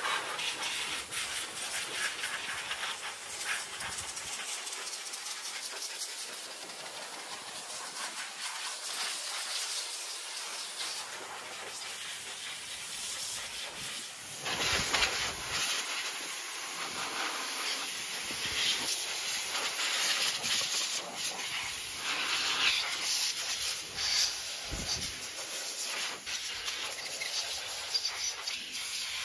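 Steady rushing hiss of air through a detailing hose nozzle worked over a car's engine bay, changing character at a cut about halfway through.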